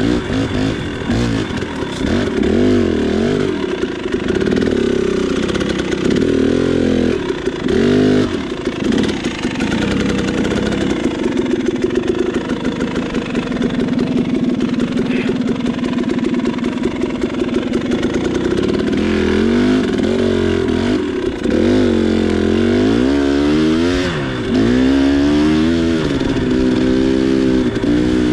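2019 KTM 300 XC single-cylinder two-stroke engine running on a rough trail. Its pitch rises and falls with the throttle, holds steadier for several seconds around the middle, then goes through repeated quick revs near the end.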